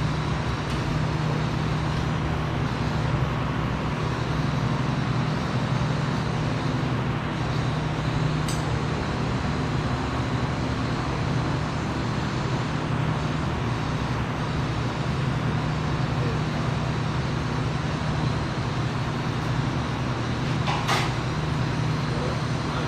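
Machinery running steadily, a low hum under an even hiss, with a couple of brief sharp ticks, one about eight seconds in and one near the end.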